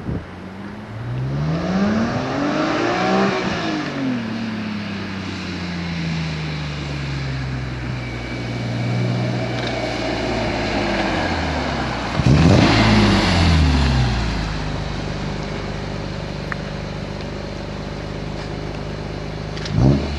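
BMW E46 M3's S54 straight-six engine through a Supersprint race exhaust, revved and let fall back to idle several times: a long rev near the start, a smaller one midway, then a sharp quick blip that is the loudest, settling to a steady idle.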